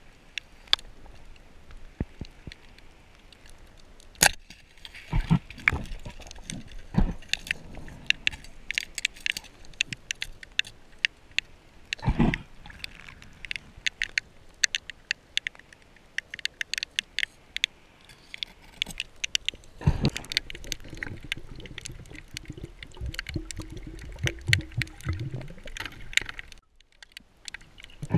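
Underwater ambience heard through an action camera's waterproof housing: a constant scatter of sharp clicks and crackles, with several louder knocks and low thumps, and a faint low hum for a couple of seconds past the middle.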